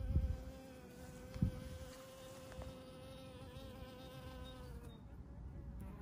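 A flying insect buzzing at a steady high pitch, stopping about five seconds in. Two low thumps, one at the very start and one about a second and a half in.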